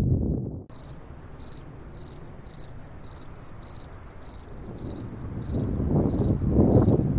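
Cricket chirping in a steady rhythm, about two short high-pitched chirps a second, starting about a second in. A low rushing noise builds underneath near the end.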